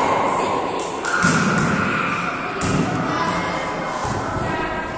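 A volleyball being hit and thudding a few times in an echoing gym hall, over a din of children's voices.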